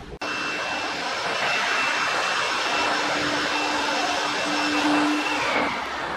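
An electric motor-driven machine running with a steady rush of air and a faint whine, which slides down in pitch and dies away near the end as it shuts off.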